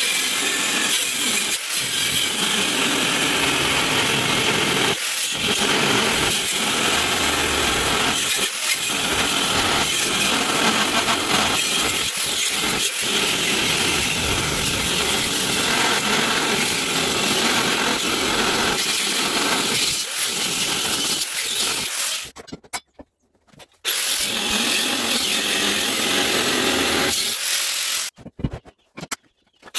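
DeWalt angle grinder with a cutting disc cutting through thick-walled steel square tubing: a continuous, loud, high grinding of the disc in the metal, played back fast-forwarded. It breaks off briefly twice near the end.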